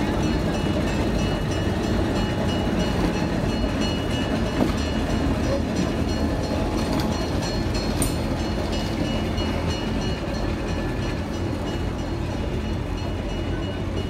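Diesel switcher locomotive running as it slowly pulls a short train of passenger coaches past. The wheels roll and click over the rail joints with a steady rumble that eases slightly near the end.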